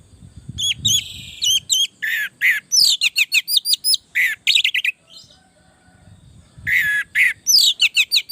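Orange-headed thrush singing vigorously: bursts of rapid, sharp, high whistled and chattering notes that sweep in pitch, with a short lull a little past the middle.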